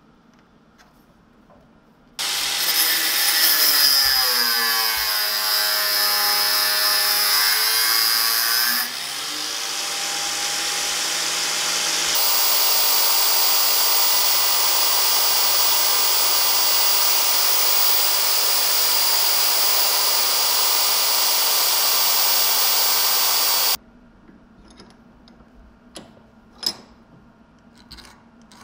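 Electric belt file (narrow-belt power file) running as copper is ground against its belt: it starts abruptly about two seconds in, its pitch wavers for several seconds, then runs steadily until it cuts off suddenly about twenty-four seconds in. A few faint clicks and one sharp knock follow near the end.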